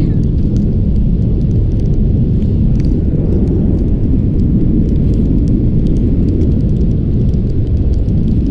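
Wind rushing over the action camera's microphone in paraglider flight: a loud, steady low rumble with faint small crackles.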